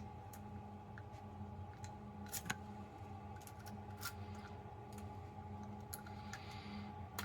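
Scattered small metallic clicks and ticks of lockpicking tools being worked against a padlock, over a steady low electrical hum. A short scraping hiss comes near the end.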